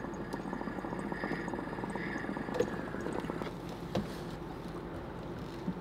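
Water bubbling steadily in an electric dab rig as it is drawn through during an inhale, easing off after about three and a half seconds, with a few faint clicks.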